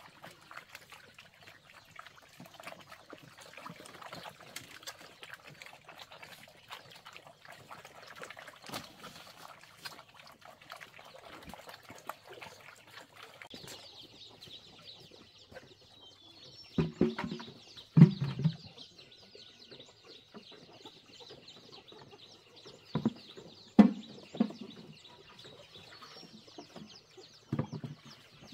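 Farm animals calling: a few short low calls in the second half, the loudest around the middle and again near the end, over a steady high-pitched buzz that sets in about halfway through.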